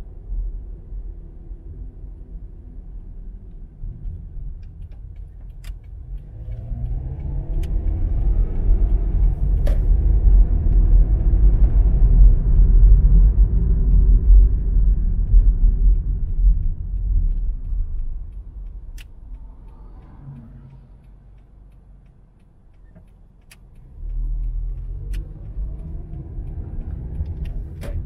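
Car driving on a suburban road: a low rumble of road and engine noise that swells for several seconds, fades away about two-thirds through, then comes back suddenly near the end, with rising engine tones.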